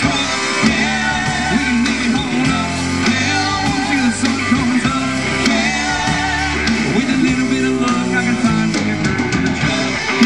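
Live country-rock band playing: electric guitar, bass guitar and drum kit with a male lead singer's amplified vocals.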